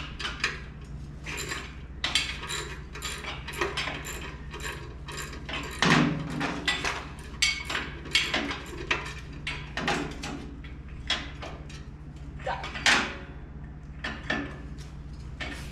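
Hand tools and bolts clinking as bolts are taken off: a quick, uneven run of small metal clicks and clanks, with heavier knocks about six seconds in and again near thirteen seconds, over a steady low hum.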